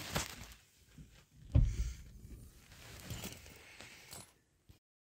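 Handling noise from a camera being moved about inside a car: rustles and light clicks, with one dull thump about one and a half seconds in. The sound cuts off suddenly near the end.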